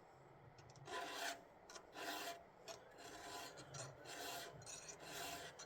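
A chainsaw file being pushed by hand across the cutters of a chainsaw chain, freehand without a guide: a run of separate rasping strokes, about one every second or so, starting about a second in.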